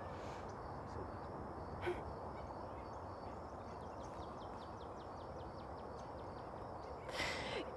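Quiet outdoor ambience: a steady low background hum with faint, regularly repeated high chirps, like birds. There is a small click about two seconds in and a brief rush of noise near the end.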